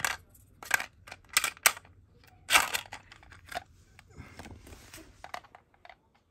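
Hard plastic balls clicking and rattling against the clear plastic body of a cheap ball-shooter toy pistol as it is loaded and handled: about half a dozen sharp separate clicks, the loudest about halfway through, with a softer rustle of handling a little later.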